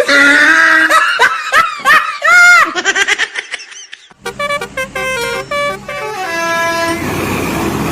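Multi-tone 'telolet' bus air horn sounding a run of steady notes like a short tune, with voice-like gliding tones in the first half and a hissing noise near the end.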